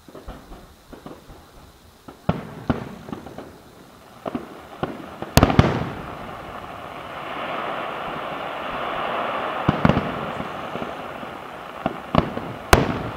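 Aerial fireworks shells bursting: about a dozen sharp bangs at irregular times, loudest about five and a half seconds in and near the end, with a dense crackling hiss through the middle stretch.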